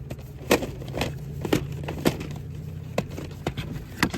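A run of sharp, short knocks and clacks, roughly two a second, over a low steady hum.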